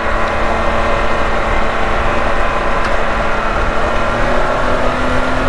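Can-Am Maverick X3 side-by-side's turbocharged three-cylinder engine running steadily while under way, its note rising a little near the end.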